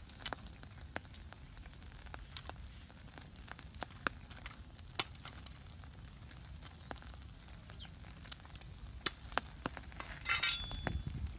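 A knife blade cutting and tapping bamboo sticks, giving scattered sharp clicks, two of them loud, and a short clatter near the end as the bamboo pieces are handled, over the faint crackle of a small wood fire.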